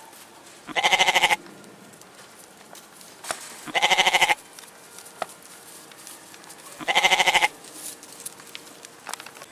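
Domestic goat bleating three times, about three seconds apart, each call a short quavering bleat of under a second.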